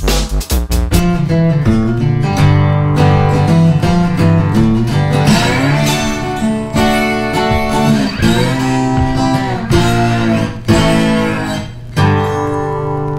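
Background music: a guitar-led instrumental track with strummed and plucked notes.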